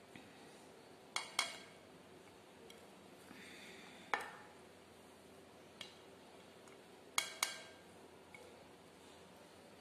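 A spoon clinking against a ceramic plate and a glass mixing bowl as chopped vegetables are pushed off the plate into the bowl. There is a pair of sharp clinks about a second in, single clinks around four and six seconds in, and another pair a little after seven seconds.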